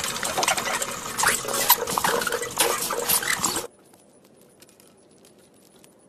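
Hamster exercise wheel rattling and clicking rapidly as a hamster runs in it, stopping suddenly a little over halfway through. After that only faint scattered ticks.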